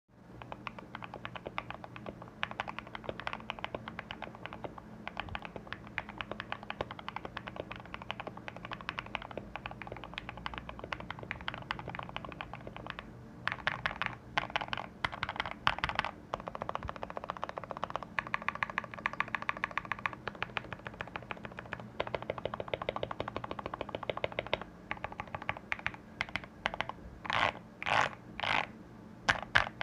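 Typing on a modded Anne Pro 2 mechanical keyboard with lubed Durock POM linear switches, tape-modded and foam-dampened: a steady stream of key clacks. Louder, faster runs of strokes come around the middle and near the end.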